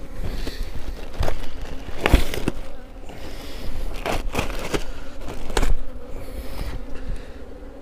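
Honeybees buzzing over an open hive, broken by several sudden knocks and scrapes as the hive's wooden frames are handled; the loudest comes about two seconds in.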